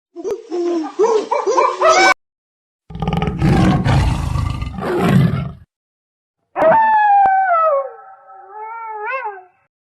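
Three separate animal calls cut one after another with silent gaps: first a quick run of short yelping calls, then a low, rough roar about three seconds in, then one long call that slides down in pitch and wavers near the end.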